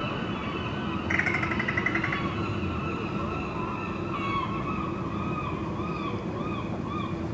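Street ambience: a steady hum of traffic. About a second in there is a rapid trill lasting about a second, and through the second half a run of short rising-and-falling tones, about two a second.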